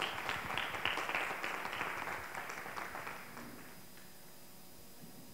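A small audience applauding, with many fast hand claps that thin out and die away about three and a half seconds in.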